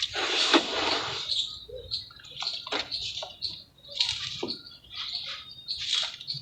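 Red mud crumbling in water: irregular wet crackling and splashing, with a long burst in the first second and shorter crackles every second or so after.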